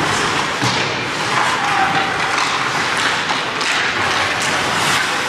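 Ice hockey in play: skates scraping across the ice, with sharp clacks of sticks and puck scattered through a steady hiss.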